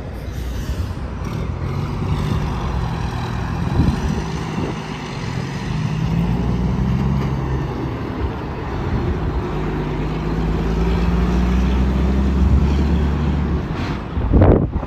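Highway traffic with tractor-trailers passing at speed: diesel engine drone and tyre roar swelling and fading as each truck goes by. A brief loud thump comes near the end.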